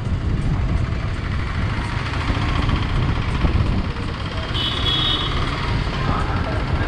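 Motor scooter riding at road speed: a steady rumble of wind on the microphone over the scooter's engine and tyre noise. A brief high tone sounds about four and a half seconds in.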